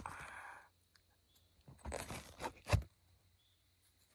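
Handling noise of a camera being adjusted on a makeshift deadwood tripod: a brief rustle, then several knocks and rubs, the loudest a single thump near three seconds in.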